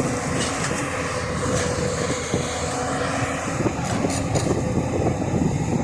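JCB NXT 205 tracked excavator's diesel engine running steadily under load while it works, with a thin steady whine and a few light knocks.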